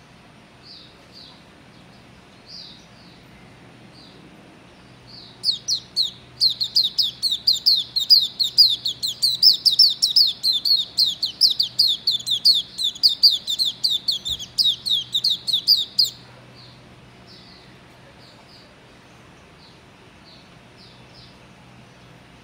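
Young Hume's white-eye (Zosterops auriventer) singing. Scattered single high chirps give way, about five seconds in, to some ten seconds of rapid high twittering song, which then breaks off back to single chirps. The song of this nine-month-old bird is still not smooth: it is still developing.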